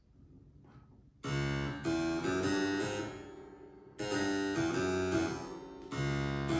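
Harpsichord playing a modern blues piece in struck chords, starting about a second in and re-entering with new phrases twice.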